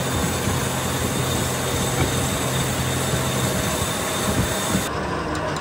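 Steady mechanical running noise of workshop machinery with a low hum, plus a few faint knocks of metal differential-case parts being handled. The hum stops about five seconds in.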